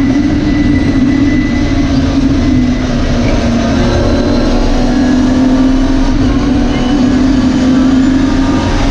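BMW E30 rally car's engine running hard at high revs, heard from inside the cockpit. The engine pitch drops about three seconds in, then climbs again.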